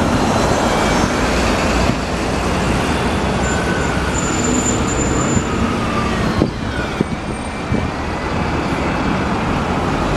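Single-deck city buses driving past close by, engines and tyres running in steady traffic noise. A brief high-pitched squeal sounds about four seconds in, and a few sharp clicks follow a couple of seconds later.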